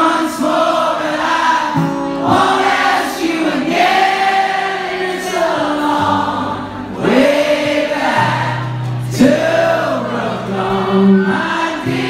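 Live band music: a male lead vocal singing sustained phrases over acoustic guitars, with held low notes that change every couple of seconds.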